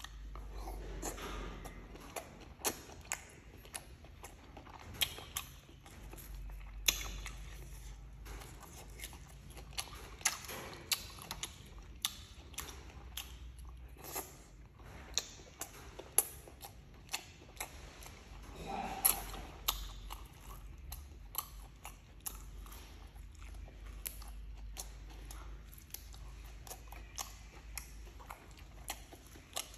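A person eating up close: chewing and biting, with many sharp, irregular clicks and crunches.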